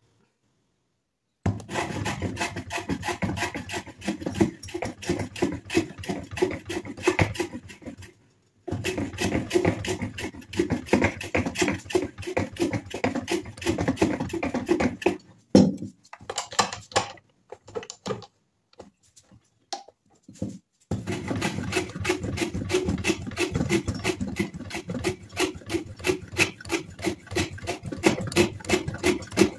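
A file rasping back and forth across a wooden handle blank clamped in a vise, in quick, even strokes. It goes in long runs, broken by a pause of several seconds past the middle.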